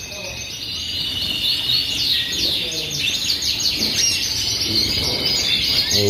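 A roomful of caged canaries chirping and singing at once: a dense, unbroken chatter of rapid trills and high chirps.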